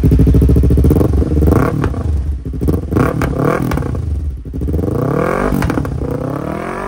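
Yamaha R3's parallel-twin engine revved through a replica aftermarket slip-on muffler, the revs rising and falling several times, with a few sharp pops as the revs drop.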